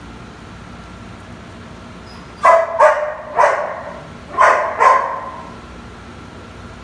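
A dog barking five times, three quick barks and then two more about a second later.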